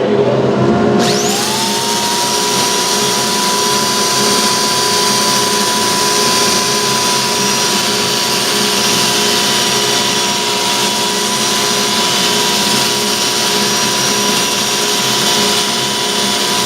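Wood lathe and dust-collection suction running steadily during spindle sanding. About a second in, a motor spins up and settles into a steady whine.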